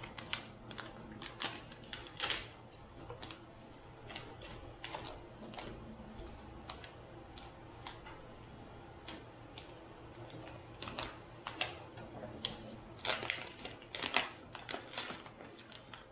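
Crinkling and crackling of a plastic soft-bait package being torn open and handled: scattered sharp crackles, coming thicker near the end.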